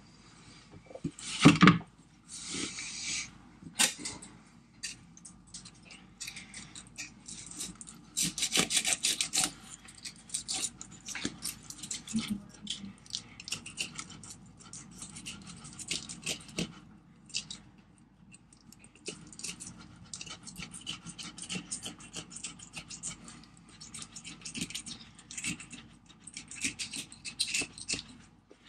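Knife scraping along the skin of a northern snakehead on a plastic cutting board, in many short rasping strokes that come in runs. One loud thump about a second and a half in.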